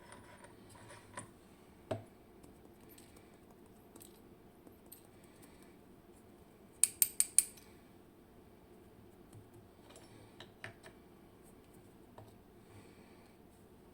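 Small metal clicks and taps of lock parts being handled while a WinkHaus KeyTec N-Tra dimple lock cylinder is taken apart, with a quick run of four sharp clicks about seven seconds in.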